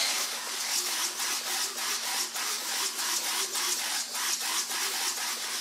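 Electric landing-gear retracts and flap servos of an RC model Boeing 737 running as the gear and flaps cycle up: a steady, scratchy mechanical grinding with rapid, irregular ticks.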